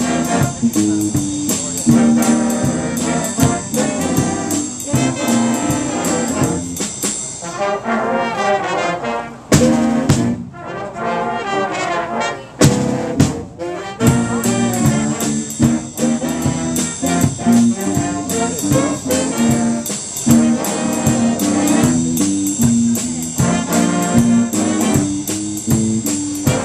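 Student jazz band of saxophones, trumpets, trombones, electric bass and drum kit playing a jazz tune, with steady cymbal time and a moving bass line. Near the middle the drums and bass drop out for a few seconds and the horns play alone, then the full band comes back in.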